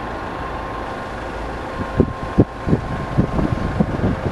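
Machinery running steadily with a faint, high, steady whine. About halfway through, a series of irregular, sharp, low knocks begins.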